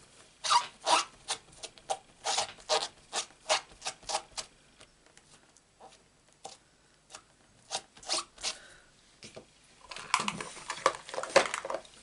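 Rubber stamp on a clear acrylic block being wiped clean with a cloth: quick rubbing strokes, close together for the first few seconds and sparse in the middle, with a longer stretch of rustling near the end.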